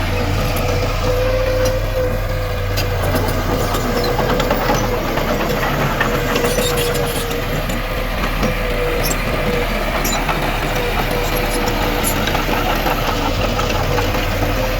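Heavy diesel earthmoving machinery running steadily, with a constant whine over the engine's low drone and scattered light metallic clanks.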